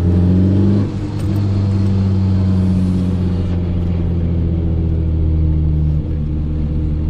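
BMW E30 M3 Evo 2's S14 four-cylinder engine pulling under way, its note rising in the first second, then running steadily; the sound drops briefly about a second in and again near the end.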